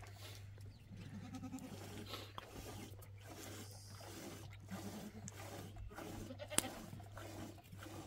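Goats bleating faintly, a few short calls, among scattered small clicks and rustles, with one sharper click late on.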